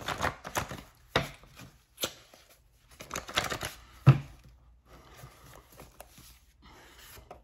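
A stack of paper index cards being shuffled by hand: irregular papery flicks, slaps and rustles, with one sharper knock about four seconds in.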